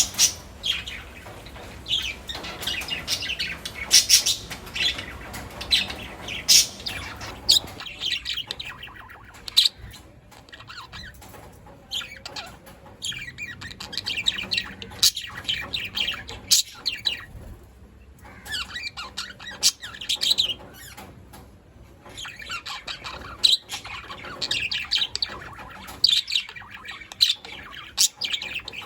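A flock of budgerigars chattering: a dense, near-continuous run of short high chirps and squawks, many birds calling over one another, with brief lulls now and then.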